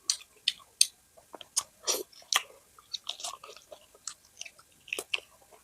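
A person chewing mutton curry close to the microphone: irregular wet mouth smacks and clicks, a few each second.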